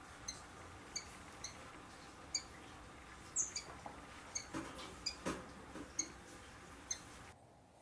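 Rufous-collared sparrow (tico-tico) giving short, high call notes: a dozen or so brief chirps at irregular intervals, about one or two a second. A single click about five seconds in.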